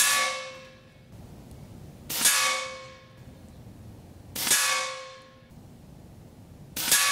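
Four shots from an AGT Uragan 2 .25 caliber shrouded PCP air rifle firing slugs, about two seconds apart. Each is a sharp crack followed by a brief metallic ring that fades within a second.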